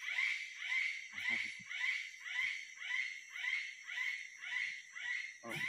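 An animal's rhythmic call, one short downward-sliding note about twice a second, over a steady high-pitched ringing tone.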